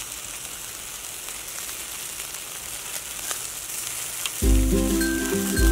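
Marinated pork skewers sizzling over a charcoal grill: a steady hiss with a few sharp crackles. Music with a heavy bass comes in about four and a half seconds in.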